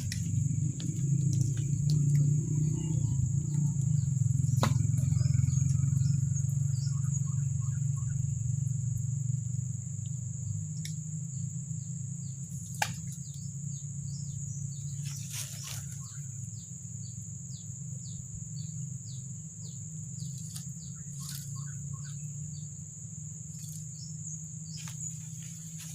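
Outdoor natural ambience: a steady high-pitched insect drone, scattered short bird chirps, and a low rumble that eases after about ten seconds.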